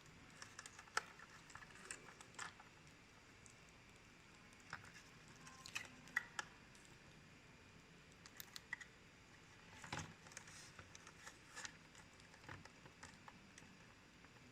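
Faint, scattered clicks and taps of small plastic parts and tools being handled, irregular and a few to several per second, with a slightly stronger knock about ten seconds in.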